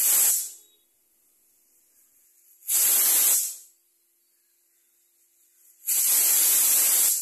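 Prestige pressure cooker venting steam past its weighted whistle valve in three hissing bursts: a short one at the start, one of about a second near the middle, and a longer one near the end. This is the cooker releasing steam at full pressure.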